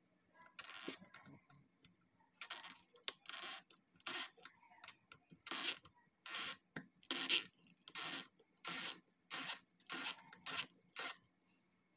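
A pointed pick tool scraping inside an opened iPhone 7 Plus along the edge of the battery: about a dozen short, hissy scraping strokes, a little under a second apart.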